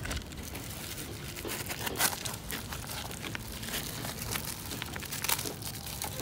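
Clear cellotape, crumpled and shredded, being torn and pulled by hand off a scooter's rear tyre: continuous crinkling and crackling, with a louder rip about two seconds in and another near the end.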